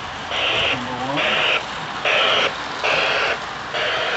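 Toy steam locomotive sound unit in the tender of a Lionel Southern Railway Mikado O gauge train chuffing in a steady rhythm, about one chuff every 0.6 seconds, as the train runs.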